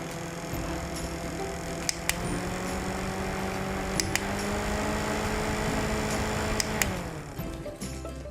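A small motor's steady hum with a few light clicks. Its pitch rises slightly about two seconds in, then glides down as it stops about seven seconds in.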